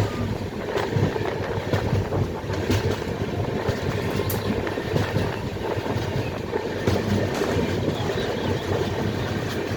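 Express passenger train running at high speed, heard from aboard: a steady rumble and rush with irregular clicks of the wheels over the track.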